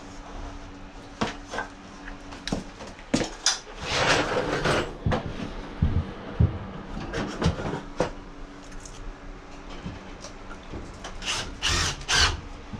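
Hand work with tools and lumber: scattered knocks and clunks, with two short stretches of scraping, one about four seconds in and one near the end.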